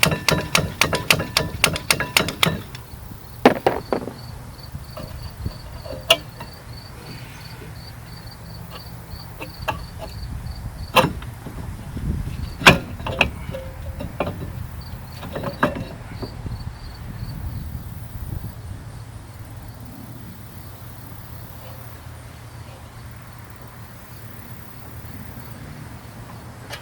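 Rapid, even clicking of a hand tool for the first two or so seconds, then scattered sharp metal knocks and clinks of tool work on the car's rear brakes. A cricket chirps steadily in a high, even pulse for much of the time.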